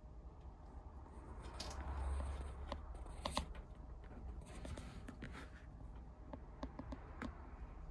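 Faint scratching and rustling with scattered small clicks, densest in two short patches, the sharpest clicks a little before the middle.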